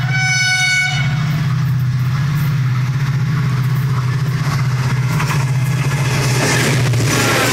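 Air horn of an EMD HGMU-30R diesel-electric locomotive sounding and cutting off about a second in, over a steady low engine drone. Wheel and rail noise grows louder near the end as the train draws close.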